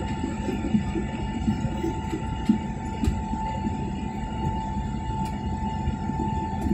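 Airliner cabin noise as the plane climbs after take-off: a steady low rumble of the jet engines and rushing air, with a steady high whine over it.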